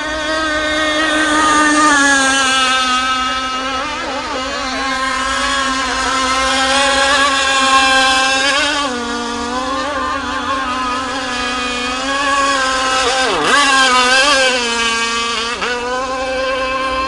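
A gasoline-powered radio-controlled racing boat's small two-stroke engine runs at high revs in a steady, high whine. Its pitch wavers as the boat turns and dips sharply as it passes, about three quarters of the way through.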